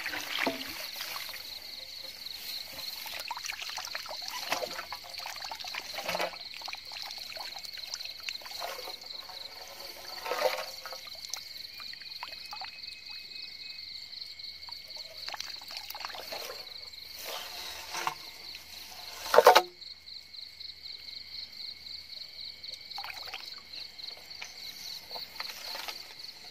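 Water splashing and trickling, with rustling in wet grass, as a PVC pipe eel trap is handled in the flooded field; one loud, sharp splash-like sound comes about three-quarters of the way through. Under it runs a steady, fast-pulsing trill from a night chorus of frogs and insects.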